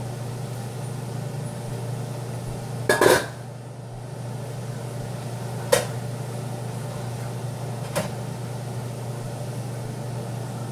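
Cookware knocks over a steady low hum: one loud metallic clank with a short ring about three seconds in, then two lighter knocks, one near the middle and one later.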